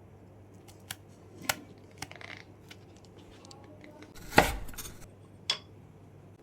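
Kitchen utensils clinking and knocking: a few separate sharp clicks, with a louder clatter a little after four seconds in.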